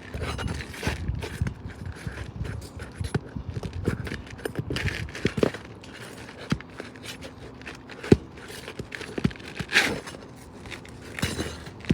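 Roofing nails being pried out from under 3-tab shingles: a metal tool scraping and tapping irregularly against the shingles and nails, with one sharp click about eight seconds in.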